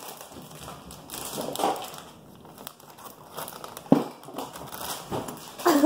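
Snack wrapper crinkling as it is handled, with a sharp knock about four seconds in.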